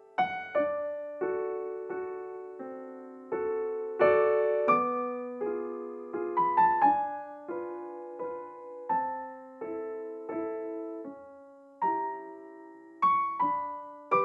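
Background music: a gentle solo piano piece, single notes and chords struck about once a second and left to fade.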